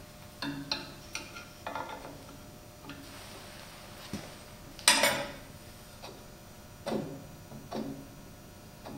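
Scattered metal clicks and clanks from a bandsaw rip fence's adjustment hardware being loosened and worked by hand to correct the fence for blade drift, with one louder, ringing clank about five seconds in. The saw is not running.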